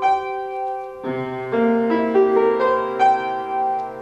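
Piano music: single struck notes at first, then from about a second in, several notes overlapping into chords, each ringing and fading.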